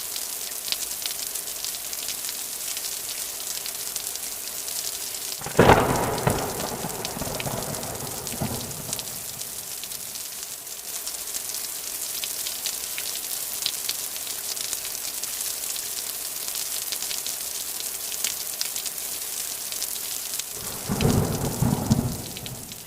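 Steady rain with two rolls of thunder: a sudden loud crack about five seconds in that rumbles away over three seconds, and a second rumble near the end.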